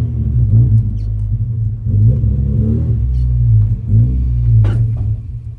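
1990 Mazda Miata's four-cylinder engine running with a heavy, rumbling exhaust drone, swelling up and down in revs. About four and a half seconds in comes a single sharp bang as the exhaust strikes the road.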